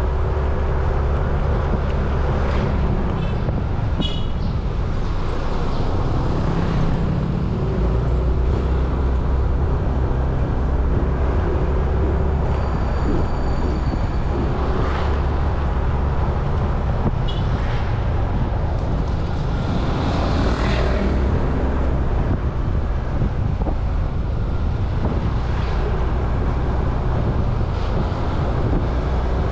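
Motorcycle engine running steadily while riding through town traffic, with road noise. A louder rush of noise swells and fades about twenty seconds in.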